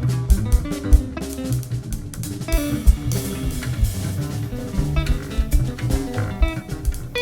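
Jazz guitar trio playing: guitar lines over bass and drum kit.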